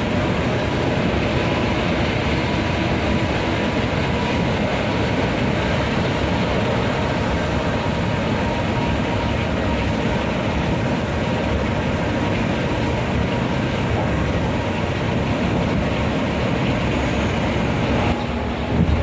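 Steady drone of a bus's engine and tyres heard from inside the cabin while it runs at highway speed, with a brief break in the sound near the end.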